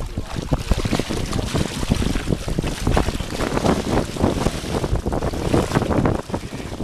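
Wind buffeting the microphone with a constant low rumble, broken by many irregular knocks and thumps.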